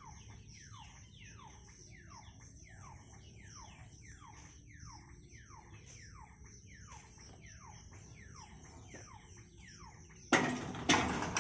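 Level-crossing warning hooter sounding a falling, whistle-like sweep about twice a second as the boom barrier lowers. About a second before the end, the barrier boom comes down onto its rest with a loud bang, followed by a couple of rattling knocks.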